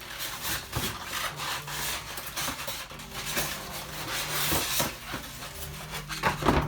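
Cardboard packaging rubbing and scraping as a coffee machine is pulled out of its box, with a few louder knocks near the end.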